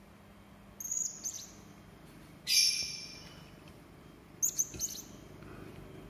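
Serindit hanging parrot giving sharp, high-pitched, harsh calls: a few short notes about a second in, one loud rasping call about two and a half seconds in, and a quick cluster of short notes near the end.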